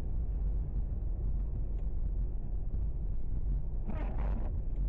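Steady low rumble of a car driving, heard from inside the cabin, with a brief rush of noise about four seconds in.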